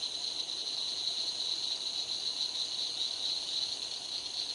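Chorus of night-singing insects: a steady, unbroken high-pitched trill.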